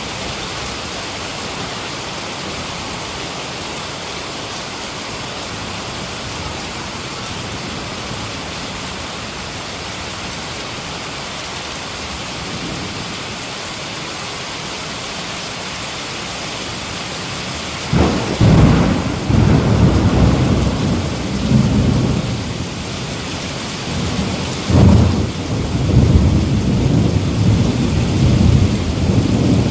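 Heavy rain falling steadily. About 18 seconds in, a clap of thunder breaks into a long low rumble, and a second clap follows about seven seconds later as the rumbling rolls on to the end.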